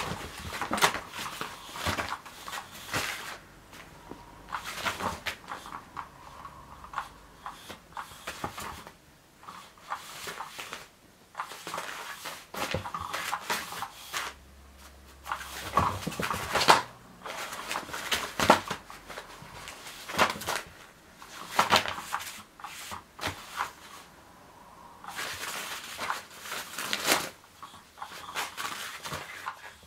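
Irregular rustling and scuffing of a rotary cat toy's nylon fabric cover as a cat bats and pounces at it, with sharper knocks now and then. The toy's small motor whirs faintly underneath, turning the wand under the cover.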